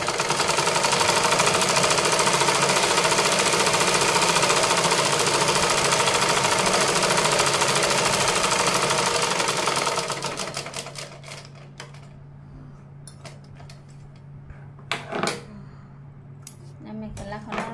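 Usha sewing machine stitching at a fast, even rate for about ten seconds, then slowing and stopping. A couple of sharp clicks follow a few seconds later as the thread is snipped with scissors.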